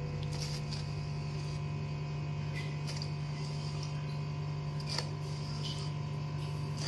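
A steady low hum, with a few light knocks of a kitchen knife on a plastic chopping board as fish fillet is sliced into strips.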